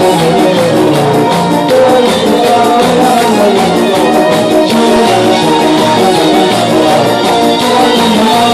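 Live pop music, loud and amplified: a man singing into a microphone over electronic keyboard backing with a steady beat.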